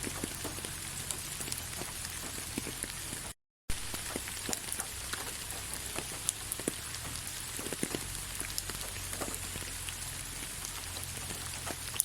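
Soft, steady rain, with scattered single drops ticking on a surface. The sound cuts out completely for a split second about three and a half seconds in.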